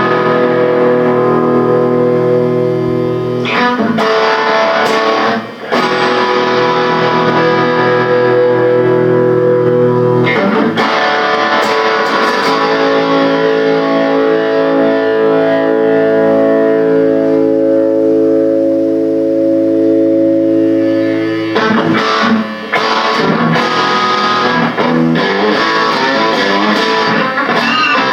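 Guitar music: sustained chords held for several seconds each, changing a few times, with quicker notes near the end.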